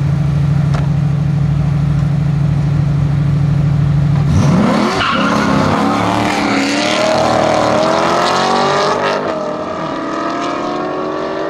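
Corvette C7 with a Capristo exhaust and a Dodge Challenger SRT8, both V8s, running steadily on the drag-strip start line. About four seconds in they launch, and the engine note climbs in repeated rising sweeps as they accelerate hard through the gears, easing off a little near the end as they pull away.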